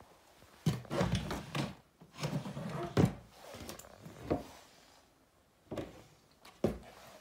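White pantry cabinet doors being opened by hand, giving a series of knocks and thumps from the doors and their catches.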